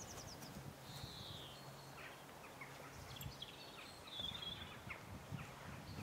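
Faint outdoor ambience: small birds chirping a few times, loudest about a second in and again around four seconds in, over a low steady hum that fades after about three seconds.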